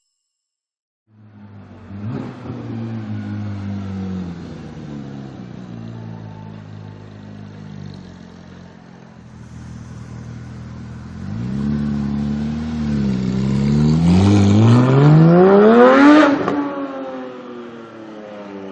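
Porsche 991 GT3 flat-six with an iPE titanium exhaust, running at low revs, then giving a short blip. It then revs hard, its pitch climbing steadily to a loud peak near the end before dropping sharply as the revs fall.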